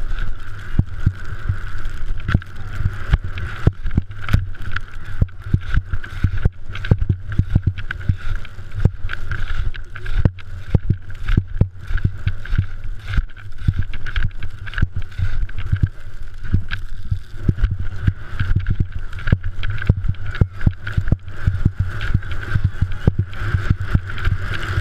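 Skis chattering and thudding over moguls on a fast run, a dense irregular patter of hits, under heavy wind rumble on the GoPro Hero 3 Black's microphone.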